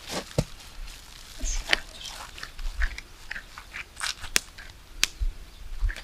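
Wet clay mud being pressed and patted by hand around a wrapped package: irregular squelching pats and crunches, with a few sharper clicks in the second half.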